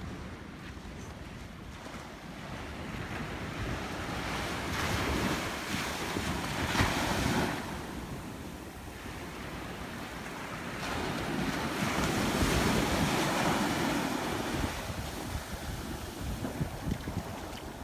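Choppy Gulf of Mexico surf: small waves breaking and washing up a sandy beach, the rush swelling louder twice as waves run in and draw back, with wind buffeting the microphone.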